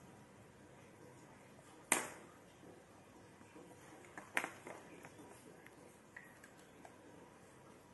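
Small plastic toy make-up pieces clicking as a child handles them: one sharp click about two seconds in, another a little past the middle, and a few faint taps.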